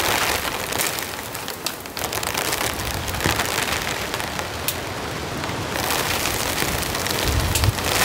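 Sleet and small hail pattering steadily, a dense hiss full of fine ticks. A low wind rumble builds near the end.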